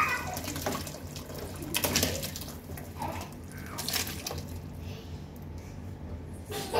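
Masala mixture and hot water being poured from a saucepan into a large aluminium cooking pot, splashing into the liquid, with a few short knocks.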